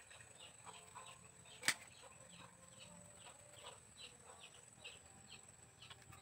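A single sharp snip of a hand pruning tool about a second and a half in. Around it are faint repeated short chirps and a steady faint high tone.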